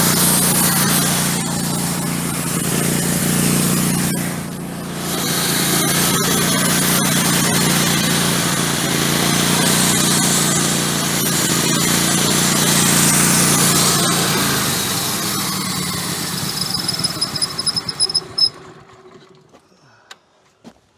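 Woodmizer LT15 Go band sawmill running steadily under load, its blade cutting through a frozen pine log. About three-quarters of the way in the sound tapers off, sputters briefly and cuts out.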